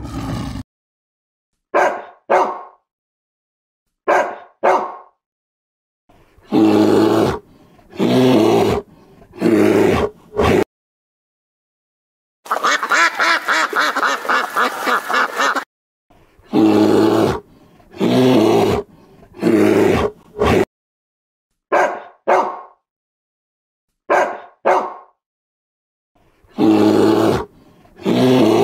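A string of separate animal calls cut together, with sudden silences between them. A call breaks off just after the start. Then come pairs of short calls, runs of longer repeated calls, and about halfway through a rapid pulsing call that lasts about three seconds.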